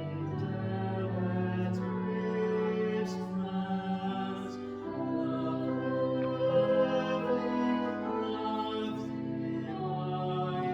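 Slow music with long held notes that change step by step.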